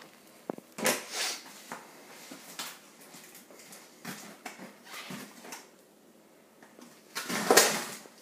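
Packing tape being picked at and peeled off a cardboard box by hand: a string of short scratchy scrapes and tears, with one louder, longer rip about seven seconds in.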